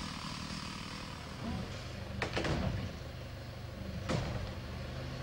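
Tractor engine running steadily, with a few sharp knocks: two close together about two seconds in and another about four seconds in.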